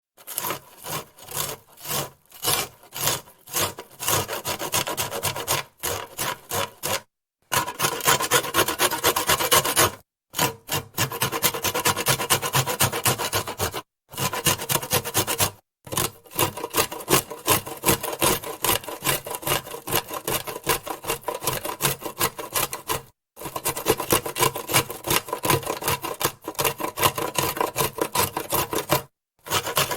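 A carrot being grated on a metal kitchen grater: fast, repeated scraping strokes. The strokes are spaced apart for the first few seconds, then come in quick runs of several seconds with brief pauses between them.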